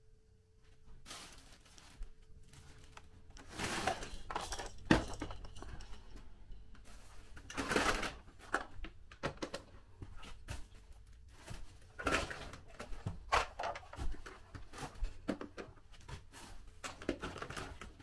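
Black plastic bin bags rustling and hard plastic children's toys knocking as they are lifted out and set down, in several separate bursts with short pauses between.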